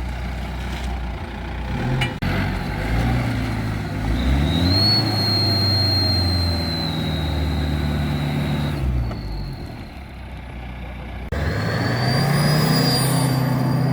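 Mahindra Scorpio's engine revving through an exhaust whistle tip, a fake turbo whistle: a high steady whistle rises in over the engine note, holds for several seconds and fades as the revs drop. After an abrupt cut near the end, the engine rises again and the whistle returns.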